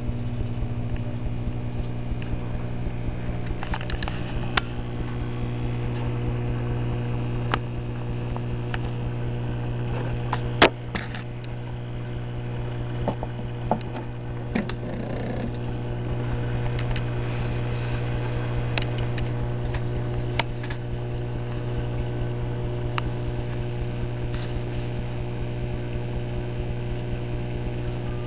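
Aquarium pump noise: an Aqueon QuietFlow 10 hang-on-back filter and a powerhead running, giving a steady low hum over water bubbling and trickling. A few sharp clicks are scattered through it, the loudest about ten seconds in.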